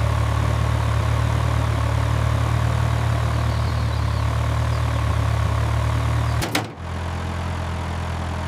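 An engine running steadily with a deep hum. About six and a half seconds in there is a sharp click, and it gives way to a somewhat quieter engine sound.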